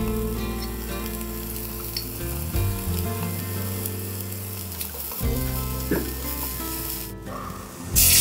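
Diced meat and carrot sizzling in a hot miniature iron wok, with a few light scrapes as chopsticks push them in. Right at the end, chicken stock poured into the wok hisses suddenly and loudly.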